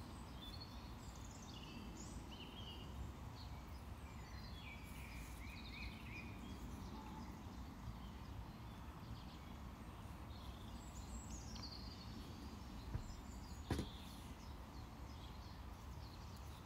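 Quiet background with faint bird chirps, short and scattered, and a single soft knock about three-quarters of the way through.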